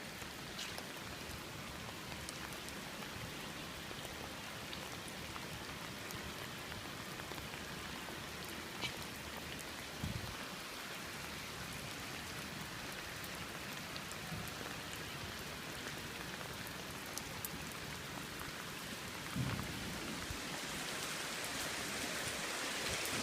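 Steady rain falling, a continuous hiss with scattered sharp drop ticks. Two short low thuds come about ten seconds in and again near the end, and the rain grows a little louder toward the end.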